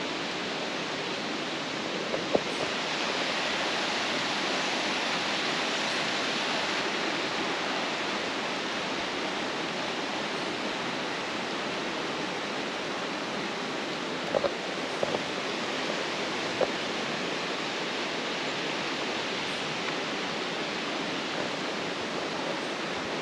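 Waterfall rushing steadily, an even hiss of falling water, with a few short clicks about two seconds in and again around the middle.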